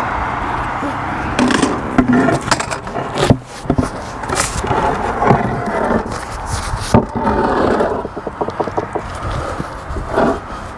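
A bluestone slab being dragged and shifted, with irregular scraping and rubbing broken by sharp knocks.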